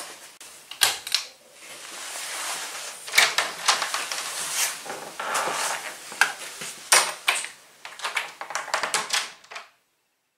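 Irregular clicks, knocks and rustling of someone moving about and handling things, cutting off suddenly near the end.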